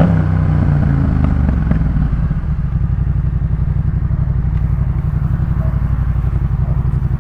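2018 Yamaha MT-07's 689 cc parallel-twin engine through a Jeskap K4 full exhaust, running with a fuller note for about two seconds and then settling into a steady, pulsing idle.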